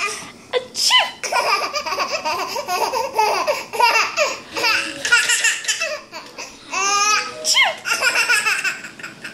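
A baby laughing hard in repeated high-pitched bursts, set off by someone sneezing.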